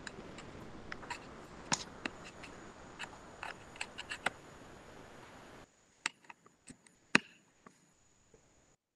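Irregular single clicks at a computer over a steady hiss of call audio. The hiss cuts off suddenly a little past halfway, and a few more clicks follow, the loudest one near the end.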